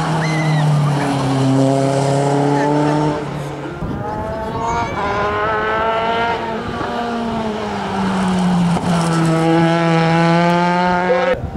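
Open-wheel single-seater racing car engines accelerating hard, the note climbing in pitch and dropping back at each upshift. An abrupt change about four seconds in brings a second car's engine, which revs up through its gears in the same way.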